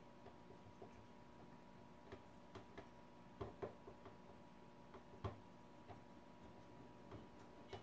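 Faint scattered clicks and taps of a spotting scope being handled and fitted onto a small tabletop tripod's mount, over near silence; the loudest tap comes about five seconds in.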